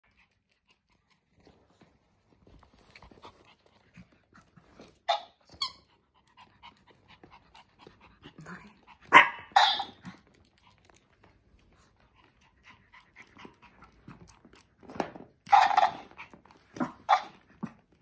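Pomeranian barking in short, sharp barks, a couple at a time, in three bouts, with faint ticking and scuffling between them.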